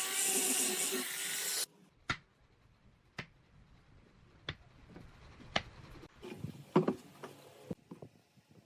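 Music that cuts off abruptly, then sharp wooden knocks about a second apart as pieces of wood are handled and set down. Near the end comes a quick cluster of knocks and wood rubbing on wood.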